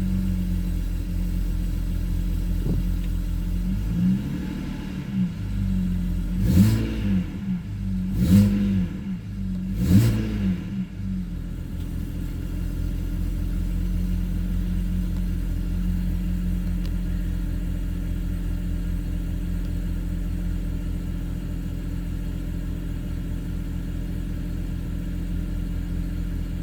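BMW N54 twin-turbo straight-six already running at idle. It is revved in several quick blips in the first half, each rising and falling in pitch, then settles back to a steady idle.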